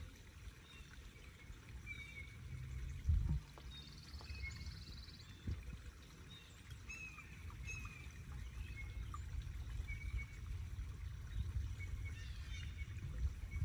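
DOT 3 brake fluid being poured from a bottle into the Ford F600 truck's brake master cylinder reservoir to top it off: a quiet trickle, with a couple of light knocks about three and five and a half seconds in.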